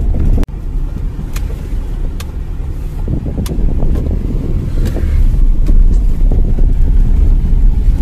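Tata Nano on the move, heard from inside the cabin: a steady low rumble of road and engine noise with some wind. The sound drops out for an instant about half a second in, and a few faint ticks come through.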